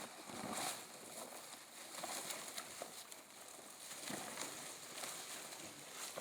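Faint background noise with a few soft, irregular rustles and knocks, like handling or movement.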